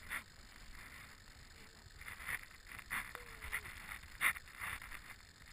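Footsteps walking on dry sand, a soft scuff about every half second.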